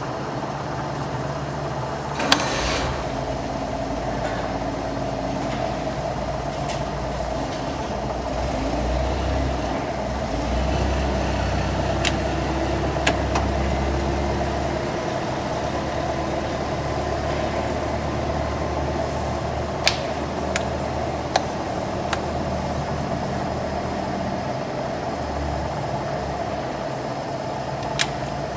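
Pratt & Whitney Model C geared-head engine lathe running: a steady mechanical hum from its gear drive, with a deeper drone that sets in about two seconds in. A few sharp clicks come through the hum, several of them in the second half.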